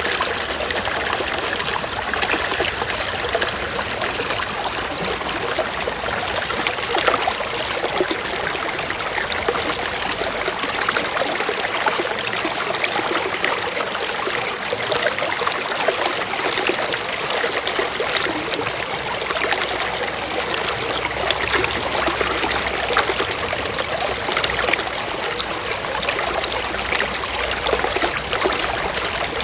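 Flowing water trickling steadily, like a small stream, with a constant patter and no pauses.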